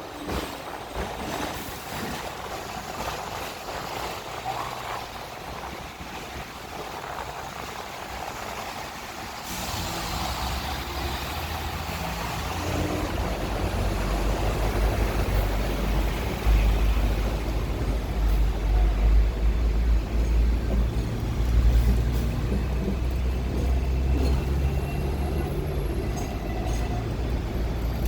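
Street sounds heard from a moving electric tram, with road traffic around it. About ten seconds in, a deep low rumble of a heavy engine comes in and grows louder.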